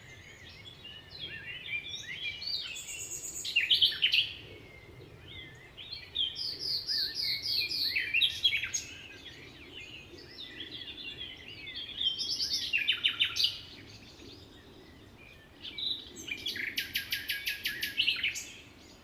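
Several songbirds singing and calling together: a mix of chirps, warbling phrases and fast trills, with louder bursts of rapid repeated notes a few times.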